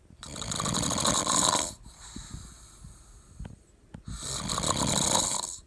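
A man snoring heavily in his sleep after drinking: two loud, rasping snores about four seconds apart, each lasting about a second and a half, with quiet breathing between them.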